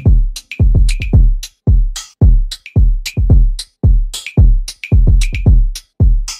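Background music: a drum-machine beat of deep bass kicks that drop in pitch, with sharp snare and hi-hat hits on top, at about one and a half beats a second, with no singing.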